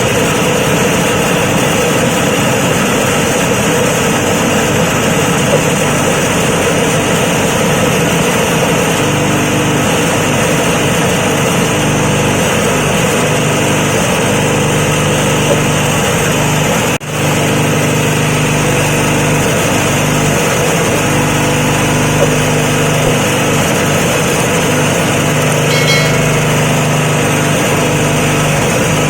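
Motorised suji and pandan leaf chopping and grinding machine running steadily, a loud continuous machine hum with a brief break about seventeen seconds in.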